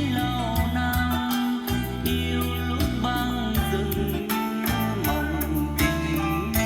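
Music with guitar, bass and a steady beat.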